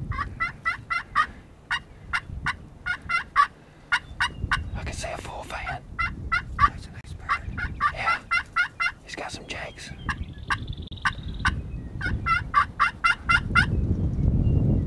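Turkey calling: repeated runs of quick, sharp yelping notes, several notes to a run.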